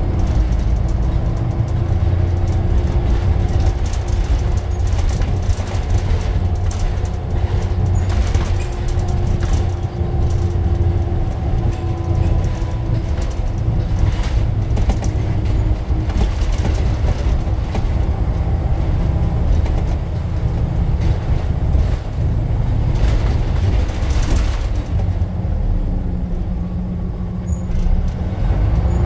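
Scania N94 double-decker bus on the move, heard from the upper deck: the diesel engine and driveline drone with a steady whine, and the body and fittings rattle and knock. Near the end the higher noise falls away to a steady low hum.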